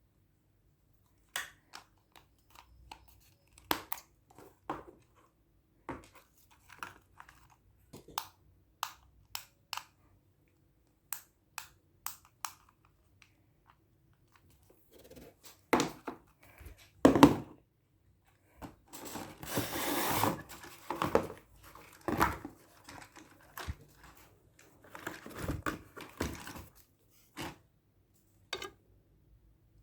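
Packaging being handled during an unboxing: scattered light clicks and knocks, with longer stretches of crinkling and tearing about two-thirds of the way in and again near the end.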